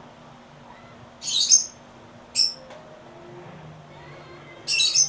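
A bird squawking three times: short, harsh high-pitched calls about a second in, at two and a half seconds, and near the end.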